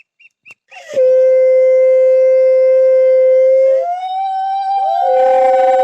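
Conch shells (shankha) blown in long, steady notes for a Hindu ritual. One conch holds a low note, breaks off briefly and starts again about a second in. A second conch with a higher note slides in at about four seconds, and the two sound together near the end.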